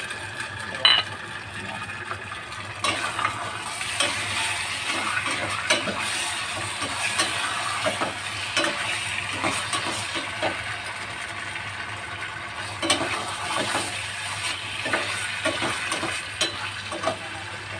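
Chicken and mushrooms in oyster sauce sizzling in a stainless steel saucepan while a long-handled utensil stirs them. Scattered clicks and scrapes of the utensil against the pot.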